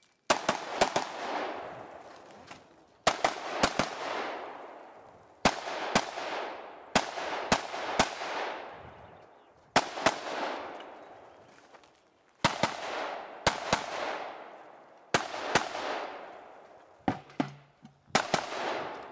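UR-15, an AR-15-type semi-automatic rifle with a 20-inch barrel and three-chamber compensator, fired in quick pairs and short strings. There are pauses of about one to two seconds between the groups, and each group trails off in a long echo.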